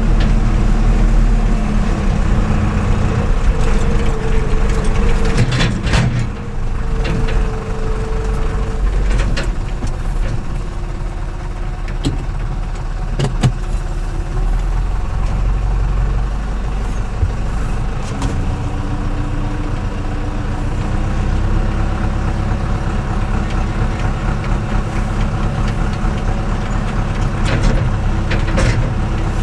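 IHC 745 tractor's diesel engine running as the tractor drives along, heard from inside its cab; the engine note shifts with the revs a couple of times, and a few sharp knocks come through.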